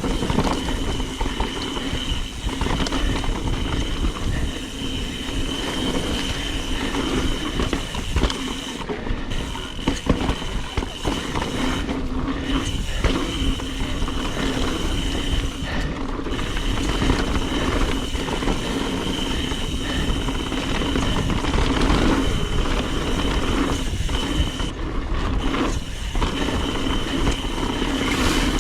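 Mountain bike riding fast down dirt singletrack: tyres rolling over dirt, the frame and chain rattling over bumps, wind rushing on the microphone, and a steady buzz throughout.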